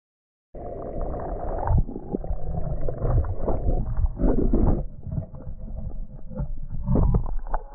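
Breaking surf churning and crashing over a GoPro in its waterproof housing as a wave tumbles the swimmer, heard muffled as the camera goes under the foam, with heavy thuds from the water and knocks against the camera. It starts abruptly about half a second in.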